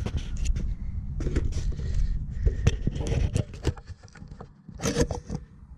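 Scattered metal clicks and knocks as the retaining pin is worked out of a steel backhoe quick hitch, over a steady low rumble.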